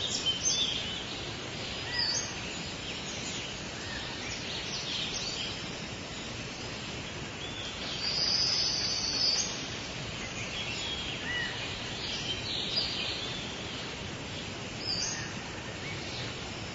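Tropical rainforest ambience: a steady hiss of background noise with birds calling and chirping on and off, the loudest a held call about eight seconds in.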